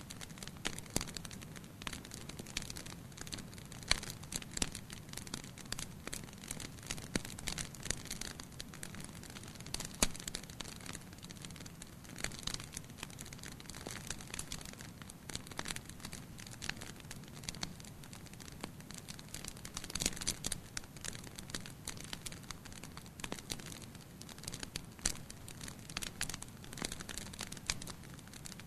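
Wood fire in a fireplace burning steadily: a soft low rush of flames under frequent sharp crackles and pops, irregular throughout, with a few louder snaps.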